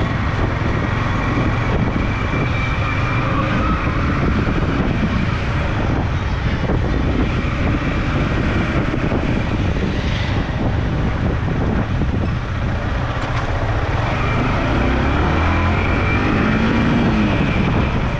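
Motorcycle riding noise in traffic: a steady rush of wind and road noise on the mic, with engine and passing vehicles underneath.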